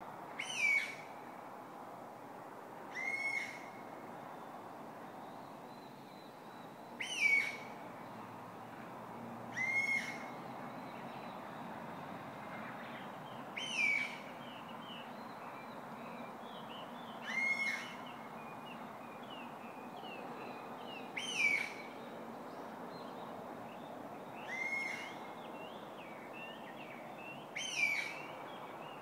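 A wild songbird repeating the same short song phrase about every three to four seconds, each phrase dropping from a high flourish to a held whistled note that curls down at the end, with fainter chirps from other birds in between. A steady hum of motorway traffic runs underneath.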